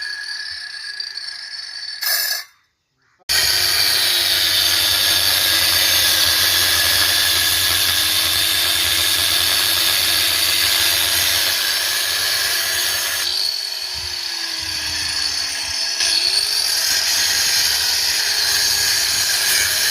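Heavy-duty electric drill running under load, cutting into a wall: a loud, steady whir whose pitch sags and recovers at times. It breaks off briefly near the start, then runs on.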